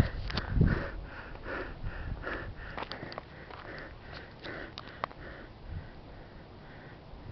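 A tired hiker's heavy breathing close to the microphone after a steep climb: quick breaths about two a second that slow and fade over the last few seconds. There is a brief low rumble near the start.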